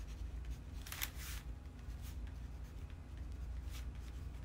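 A crayon scratching on scrap paper in a few short strokes, the loudest about a second in, over a low steady hum.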